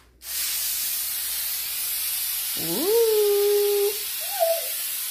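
Aerosol can of artificial-snow flocking spray hissing steadily as it sprays onto an artificial Christmas tree, starting almost at once. Over it, a loud, long rising vocal cry about halfway through, then a short second one.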